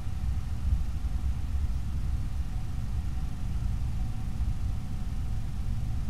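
Steady low rumble with light hiss and a faint thin whine, the background noise of a night trail camera's microphone; no animal sounds stand out.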